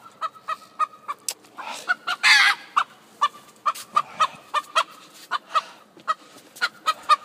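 Rooster clucking in a steady string of short clucks, about three a second, with one louder, harsher call a little over two seconds in.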